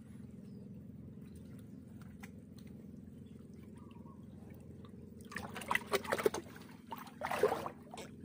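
Water splashing and sloshing, a few short splashes coming in the last three seconds. A faint steady low hum runs underneath.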